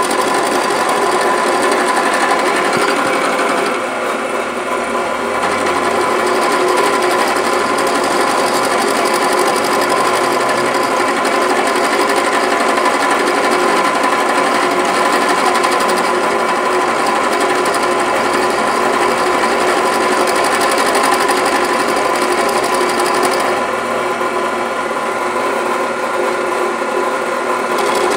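Drill press spinning a small end mill that is milling into steel roll-cage tubing, which the owner suspects is hard DOM tubing: a loud, steady cutting noise with the motor's hum. It eases a little about four seconds in and again over the last few seconds.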